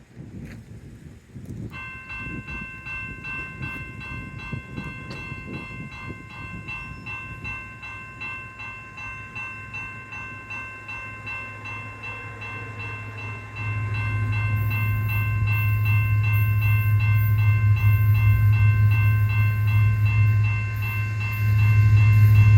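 Nathan P5 air horn on a CN EMD SD70M-2 locomotive sounding a long, steady chord as a horn salute. Under it the locomotives' diesel engines rumble as the train approaches, growing much louder about two-thirds of the way through.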